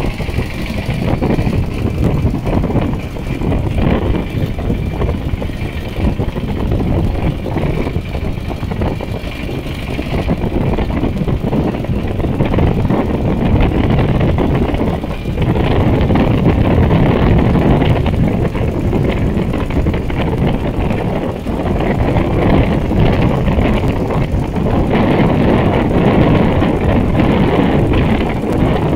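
Two-wheel walking tractor's single-cylinder diesel engine running steadily under load as the tractor tows a puddling roller through a flooded, muddy paddy.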